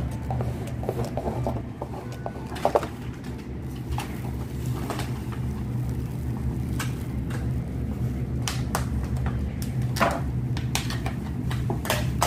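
Scattered short clicks and knocks of someone eating crab by hand, heard over a steady low hum.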